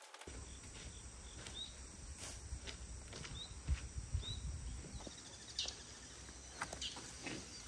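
Outdoor ambience: a low wind rumble on the microphone, a few short high bird chirps, and scattered soft knocks and rustles from raking and handling pulled weeds.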